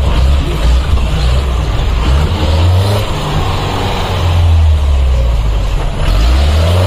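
Off-road 4x4 vehicle's engine running hard, its low note rising and falling several times as it revs.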